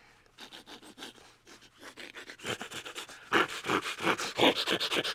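A quick run of rasping scratching strokes, faint at first and louder from about halfway through, with breathy grunts mixed in.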